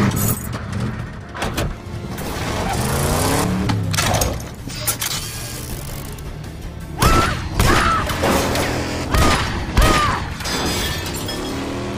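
Action-film soundtrack mix: music with a car engine, sharp bangs and impacts, and a woman yelling in the second half.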